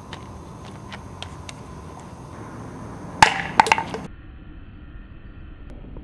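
A few light ticks, then about three seconds in a sharp clatter of hard knocks with a glassy, ringing clink, cut off abruptly.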